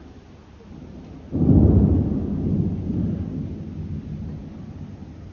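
A loud clap of thunder breaks suddenly about a second in, then rumbles deep and low as it fades over the next few seconds.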